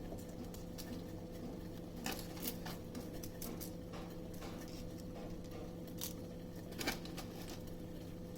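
A few light taps and rustles as dry shikakai pods are dropped into an iron kadai of oil, over a steady low hum.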